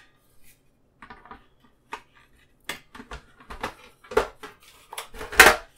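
Sheet-metal cover of a security-camera recorder (DVR/NVR) being put back onto its metal chassis: scattered metal clicks and scrapes, with the loudest clack near the end.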